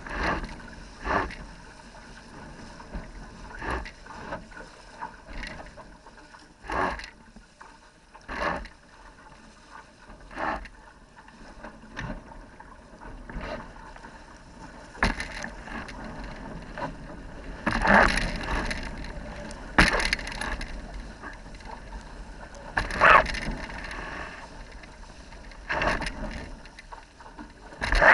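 Waves slapping and splashing against the hull of a sailing dinghy under way in choppy water, in uneven surges every second or two, a few of them much louder. Wind rumbles on the microphone underneath.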